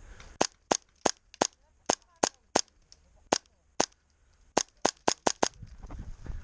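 Airsoft gun firing about fifteen single shots, each a sharp snap, irregularly spaced with a quick run of shots near the end.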